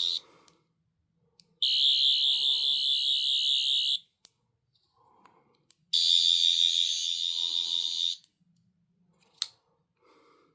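Sonic screwdriver replica playing its electronic sonic sound, a high warbling whine, from a sound chip taken from an 11th Doctor toy. It comes in bursts about two seconds long: one ends just as the sound begins, then two more follow. A single click comes near the end.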